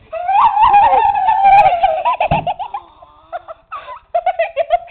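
A child's long, high-pitched squeal while sliding down the stairs in a sleeping bag. About two seconds in it ends with one big thud as his head hits a door. Children's giggling follows.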